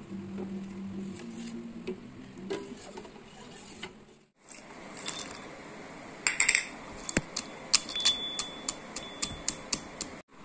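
Steel ladle clinking and scraping against a steel saucepan while stirring a thick milk mixture. After a low steady hum in the first few seconds, the second half holds a quick string of sharp metal clinks.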